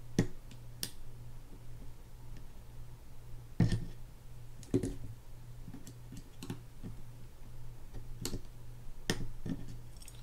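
Scattered light metallic clicks and scrapes as a small flathead screwdriver twists and pries an E-clip off the post on a Daiwa Sealine 400H reel's side plate, about half a dozen separate ticks, over a faint steady low hum.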